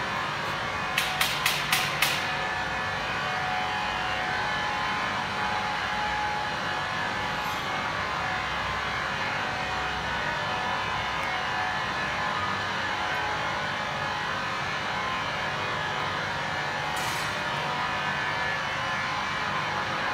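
Vacuum emulsifier mixer's electric motors running steadily with a constant hum. Five quick sharp clicks come about a second in, and a brief hiss near the end.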